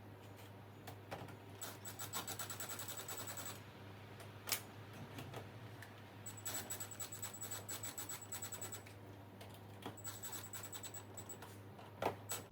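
Screws being driven into a door handle and deadbolt set with a screwdriver: three spells of rapid, even clicking, with a couple of sharp single knocks between them.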